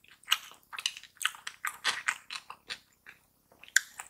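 Close-miked chewing of a mouthful of mixed rice, fried egg and vegetables: irregular mouth clicks and smacks, pausing for about a second near the end.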